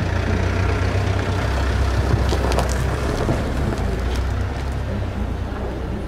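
Low, steady rumble of street traffic, a motor vehicle's engine running nearby, with a few light clicks about two to three seconds in.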